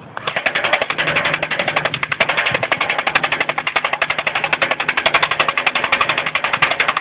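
Electric airsoft G36 replica (G608) firing on full-auto, its gearbox cycling in a rapid, even rattle of shots that starts a moment in and keeps going.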